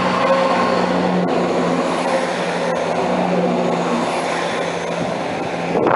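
Class 170 Turbostar diesel multiple unit pulling out under power: a steady diesel engine hum with the rumble of wheels on the rails.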